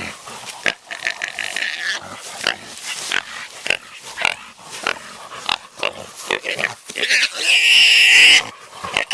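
Caught hog squealing in a string of short, sharp squeals, with one long, loud squeal lasting about a second near the end.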